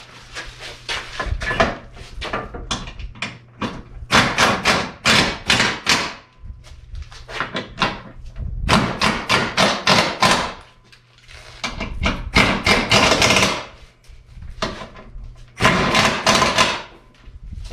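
Hammer blows in four quick runs during a front sway bar install under a car, each run a second or two of rapid sharp strikes. A faint steady low hum lies underneath.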